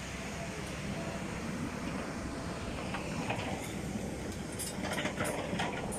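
Kobelco crawler excavator's diesel engine running steadily with a low rumble, with a few sharp clicks and knocks in the last couple of seconds.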